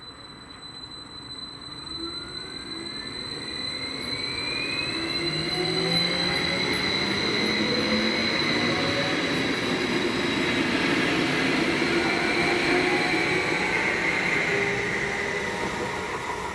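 BLS MUTZ (Stadler KISS) double-deck electric multiple unit pulling away and passing close by. Its motor whine rises in pitch as it gathers speed, over the rumble of the wheels as the cars go past, and the sound fades near the end.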